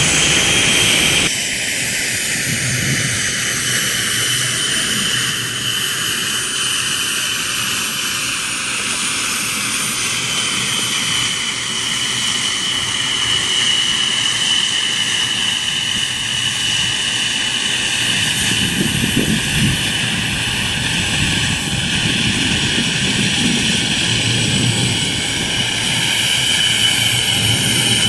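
Suction fan of an Ibex wall-climbing robot, running steadily with a high whine, the pull that holds the robot to the wall. The sound changes abruptly about a second in, then the whine drifts slowly lower in pitch.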